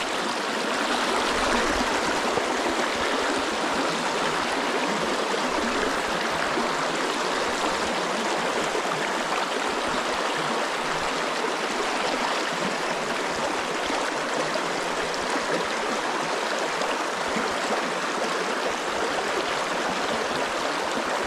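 Stream water rushing steadily, an even, unbroken rush.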